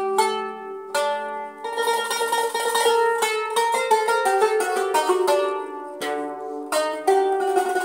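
Instrumental intro music led by a plucked string instrument playing a quick run of bright, separately struck notes.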